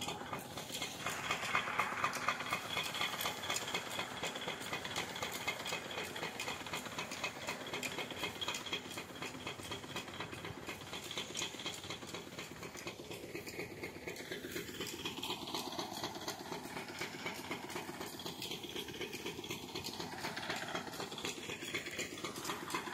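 Irrigation pump engine running steadily with a fast, even rattling beat, together with water gushing from the pump's outlet pipe.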